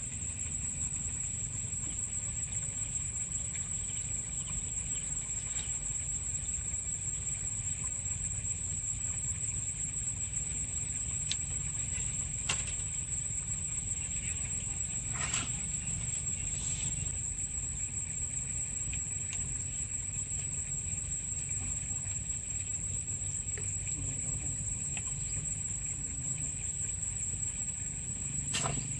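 Riverside outdoor ambience: a steady low rumble under a continuous high, thin insect whine, with a few short clicks and rustles as the catch and net are handled.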